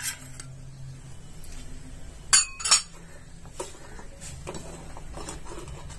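Stainless steel ladle clinking against a steel pot while stirring milk with mawa in it, scattered light clinks with two sharper ones about halfway through.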